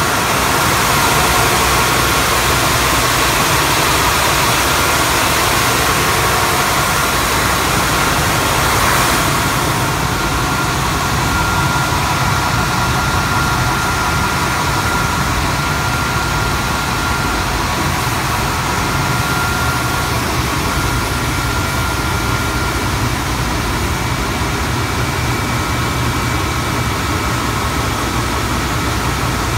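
Three-head wide belt sander running: a steady machine drone with a faint high whine over it, slightly quieter from about ten seconds in.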